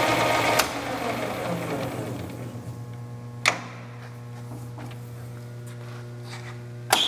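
South Bend Heavy 10 lathe running under power, its gear train whirring over a steady motor hum. About half a second in a sharp click comes and the gear noise drops away, leaving the quieter hum; another click comes mid-way, and near the end a clack brings the louder gear whir back, as the power feed is shifted.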